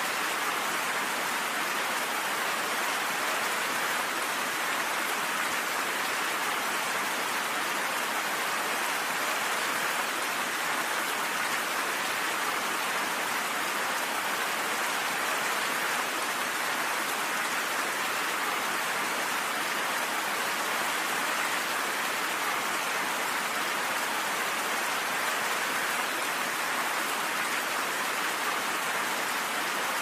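Steady rain falling, an even continuous patter with no distinct drops or thunder standing out.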